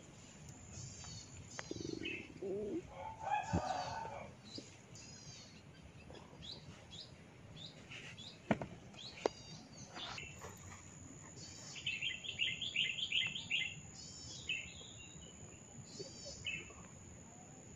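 Small birds chirping over and over, with a few sharp clicks, the loudest about eight and a half and nine seconds in, and a lower fowl-like call around three seconds in.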